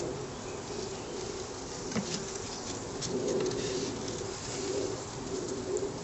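Honeybees buzzing in a steady, wavering hum around an opened top bar hive, with a single knock of wooden top bars being handled about two seconds in.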